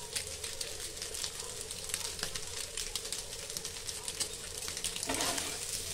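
Soya chunks sizzling in a little hot oil on an iron tawa: a steady fine crackle of tiny pops, with a steady low hum underneath.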